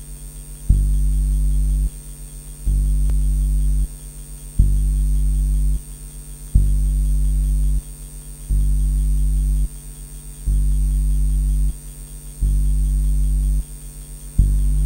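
Low electronic hum, like amplified mains hum, pulsing on and off in an even rhythm: it jumps louder with a click for about a second, then drops back to a quieter fluttering drone, eight times, about two seconds apart. A faint steady high tone sits above it throughout.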